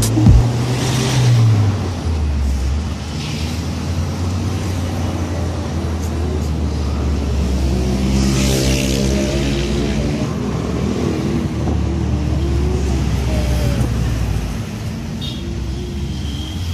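Car engine and road noise heard from inside the cabin while driving, with traffic around. The engine note shifts in pitch a few times as the vehicle changes speed.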